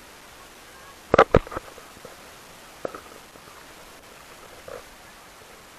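Water splashing from fish thrashing in a net in shallow sea water: two quick sharp splashes just over a second in, a smaller one near three seconds, over a steady low hiss.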